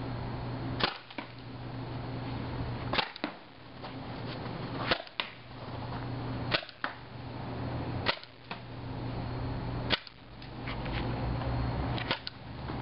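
Tippmann TPX CO2-powered paintball pistol firing seven single shots, each a sharp pop about every one and a half to two seconds. Each pop is followed a moment later by a fainter click.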